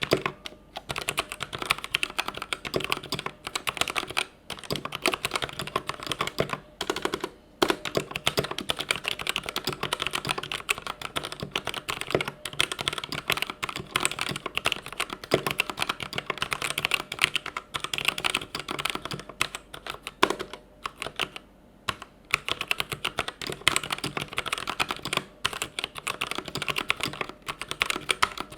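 Typing on a Vortex VX5 60% mechanical keyboard with Outemu Red linear switches: a fast, continuous clatter of keystrokes with a few brief pauses.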